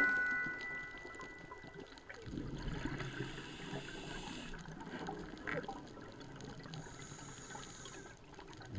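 Underwater sound of a scuba dive: a low watery rumble with two hisses of breath through a diver's regulator, about four seconds apart. A chime note from the music dies away in the first second.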